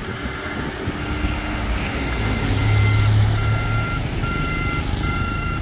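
Small dump truck backing up, its reverse alarm beeping about once a second over the running engine, which grows louder around the middle.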